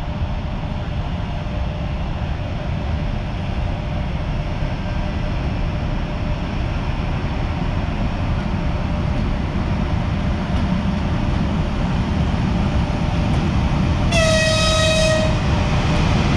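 EP1M electric locomotive approaching through a station, its low rumble slowly growing louder. Near the end it sounds its horn once, a pitched blast of about a second.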